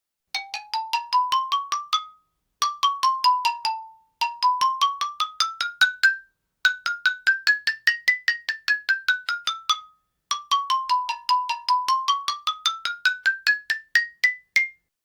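Xylophone played in quick runs of single struck notes, about six or seven a second, climbing and falling up and down the scale in five phrases with short gaps between them.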